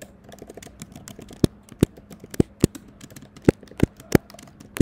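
Typing on a computer keyboard: quick runs of light key clicks, with several louder, sharper keystrokes standing out from about a second and a half in.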